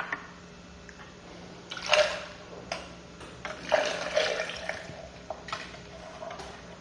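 Orange juice poured from a cup into a metal cocktail shaker, splashing in two louder spells, about two seconds in and again around four seconds in.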